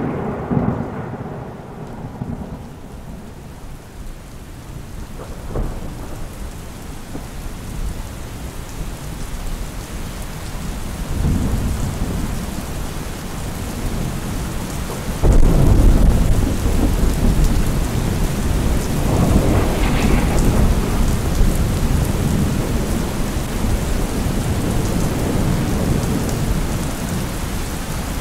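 Heavy rain pouring steadily, with thunder rumbling over it; a loud thunderclap breaks in about halfway through, and further rolls swell and fade.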